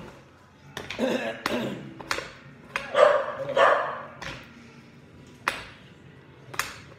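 A dog barking, once about a second in and twice around three seconds in, over sharp clicks of a spoon knocking against a bowl as meat filling is scooped out.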